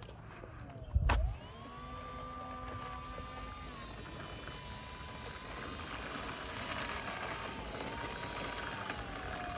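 Electric motor and propeller of a radio-controlled Cessna 182 model whining as it taxis back after landing. The pitch holds steady, drops a little a few seconds in and slides lower near the end. A single thump about a second in.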